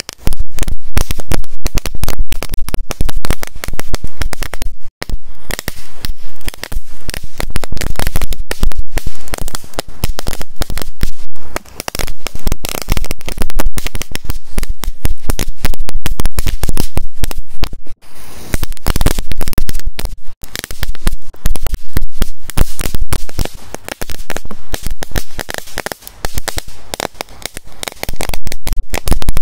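A long strip of firecrackers going off in a rapid, continuous string of loud cracks and bangs. It starts abruptly and keeps going with only momentary dips.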